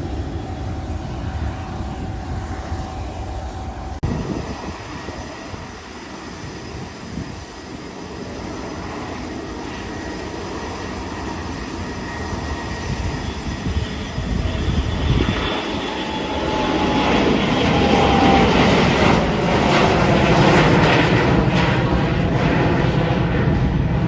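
Business jet's turbofan engines, growing steadily louder through the second half with a high whine over the rush, as the jet passes close.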